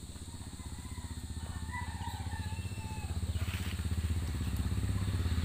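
A small engine running with a low, even pulse that grows steadily louder, as if drawing near. A few faint high chirps come over it midway.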